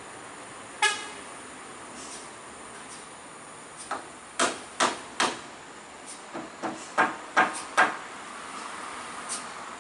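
A steady background hiss with sharp knocks over it. One ringing strike comes about a second in, then an uneven run of about nine quick knocks between about four and eight seconds in.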